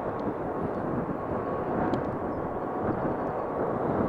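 Airbus A380's four turbofan jet engines at takeoff thrust during the takeoff roll and rotation: a steady, dense jet noise with a faint thin whine riding on top.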